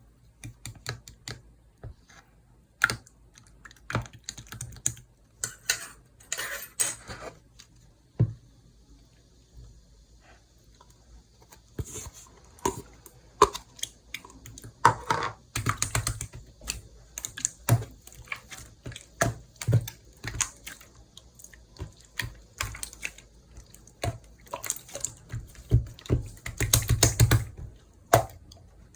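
Homemade chalbang slime, a soft, wet slime, being squeezed, pressed and poked by hand, giving a string of irregular wet clicks and pops. There is a quieter stretch about eight to eleven seconds in and a dense run of clicks near the end.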